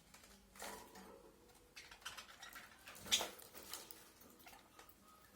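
Faint budgie chirps mixed with small clicks and scratches, coming irregularly, the loudest about three seconds in.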